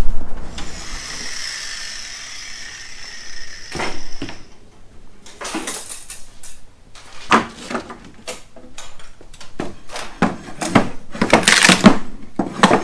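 Steel pry bar levering open a wooden shipping crate: a run of sharp knocks, metal clinks and wood cracks as the slats are pried up, loudest near the end. A steady hiss with a faint whine comes first.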